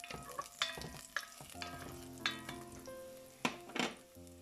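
A spoon stirring garlic in hot coconut oil in an enamelled pot: sharp scrapes and knocks against the pot, loudest as two strikes about three and a half seconds in, over a faint sizzle. Background music plays under it.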